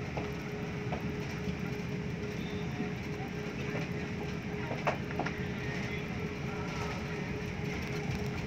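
Airbus A350 cabin noise while the aircraft taxis: a steady rumble with a constant hum, and a few light clicks and rattles, the sharpest about five seconds in.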